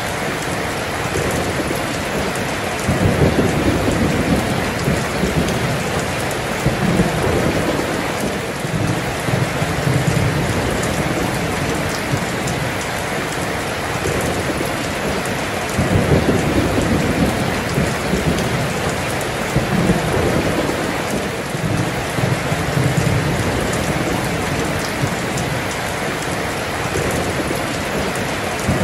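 Heavy rain pouring steadily, with low rolls of thunder rumbling in several times, loudest about three seconds in and again around sixteen seconds in.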